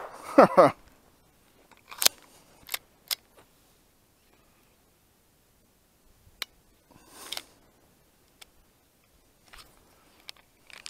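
Sharp metallic clicks, a few seconds apart, from a Glock 19 fitted with an Advantage Arms .22 LR conversion kit: the trigger snapping and the slide being worked as a round fails to fire, a typical light-primer-strike misfire of this kit. A brief falling whine is heard at the very start.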